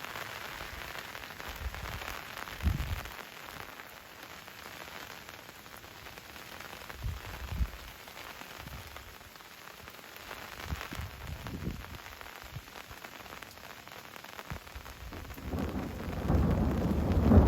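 Steady rain pattering down, with a few brief low rumbles. Near the end a roll of thunder builds into a loud, deep rumble.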